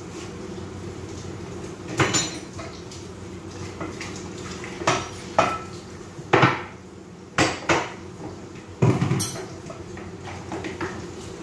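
Dishes and cookware being washed by hand in a kitchen sink: about eight separate clanks and clinks of pots, plates and utensils knocking together, over a steady low hum.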